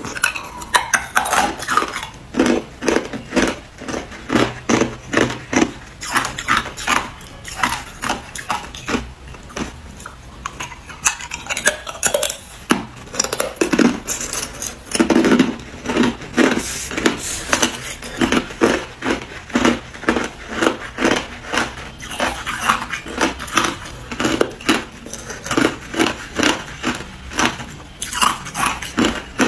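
Hard ice cubes being bitten and chewed close to the microphone: crisp, cracking crunches in quick succession, a couple a second, with no pause.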